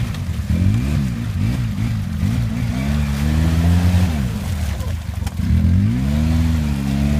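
Polaris ATV engine revving hard in several quick throttle blips, then held high, dropping briefly and revving up again, under load as the quad churns through deep mud.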